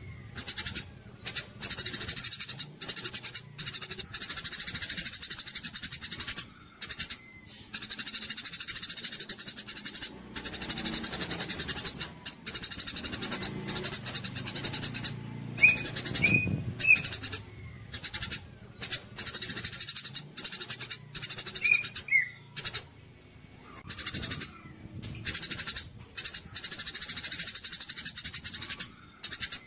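Small songbird singing a rapid, high-pitched chattering trill in bursts of a second or two, broken by short pauses, with a few brief rising whistled notes mixed in.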